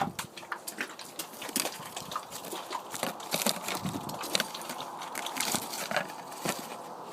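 Footsteps on wet, muddy ground: irregular wet clicks and smacks.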